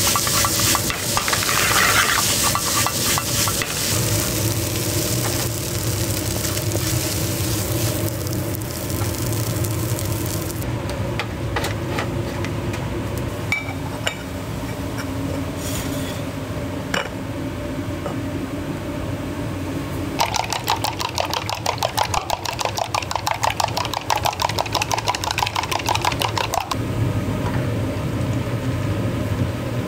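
Food being prepared in a restaurant kitchen. A steady hiss for about the first ten seconds gives way to scattered clinks and taps, then about twenty seconds in comes a run of fast, even strokes lasting about six seconds.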